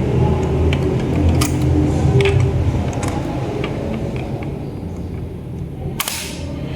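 Small clicks and taps from handling a diecast toy car and its packaging, over a low steady hum. One sharp snap comes about six seconds in.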